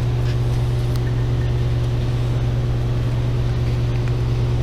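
Steady low mechanical hum of background machinery, with a few faint clicks from hand work on the parts.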